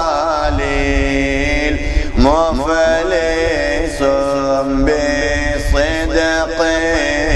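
A man chanting an Arabic devotional poem (munajat) solo in a melismatic style: long held notes linked by ornamented, wavering turns in pitch.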